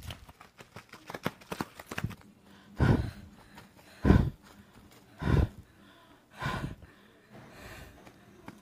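Quick footsteps running on dry dirt, then heavy panting: four loud, breathy gasps about a second apart and a fainter one near the end, as people catch their breath after running.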